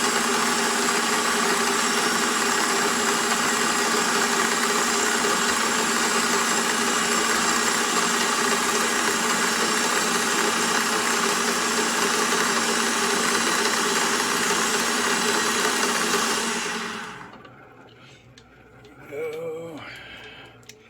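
Milling machine running steadily while it cuts steel bar stock to width, then spinning down and stopping about 17 s in. A brief faint pitched sound follows about two seconds later.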